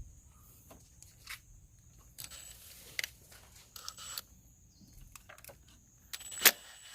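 Hand work with tools or parts: scattered clicks, short rustling and scraping, and one sharp click about six and a half seconds in, over a faint steady high whine.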